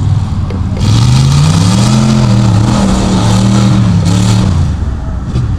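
Chevy mega truck's engine revving hard about a second in, its pitch climbing and then holding under full throttle as the big tires churn through the mud, before the revs drop back near the end.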